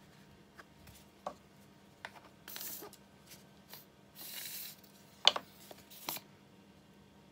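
Glue-up handling sounds: a plastic wood-glue bottle being squeezed, with two short hissy squirts, among light clicks and knocks of small wooden pieces. The sharpest knock comes a little after five seconds in.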